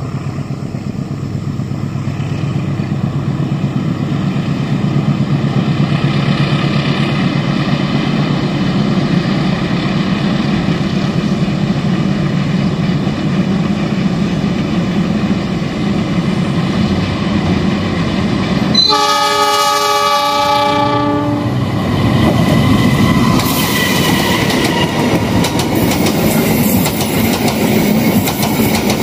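Passenger train hauled by a diesel-electric locomotive approaching with a steady engine drone that grows louder, sounding one long horn blast of about two and a half seconds about two-thirds of the way through. Then the coaches pass close by on a steel bridge, their wheels clicking rhythmically over the rail joints.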